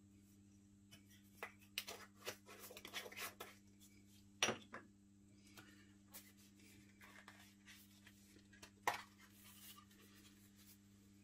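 Faint clinks and taps of small spice jars and a metal teaspoon being handled, with two sharper knocks, one about halfway through and one near the end, over a steady low hum.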